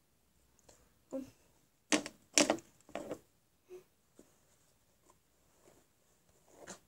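A hairbrush drawn through long hair in a handful of short, uneven strokes, the loudest two about two seconds in.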